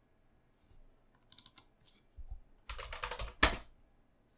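Typing on a computer keyboard: a few scattered key clicks, then a quick run of keystrokes ending in one louder keystroke about three and a half seconds in, as a short word is typed and Enter is pressed.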